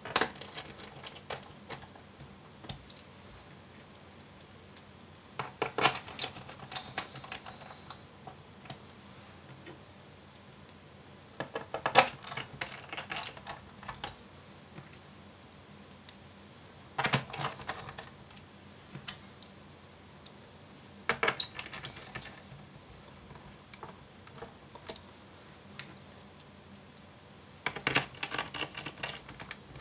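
Small Phillips screwdriver driving screws back into the plastic base of a laptop: short bursts of light clicking and tapping, six in all, about every five seconds, one screw after another.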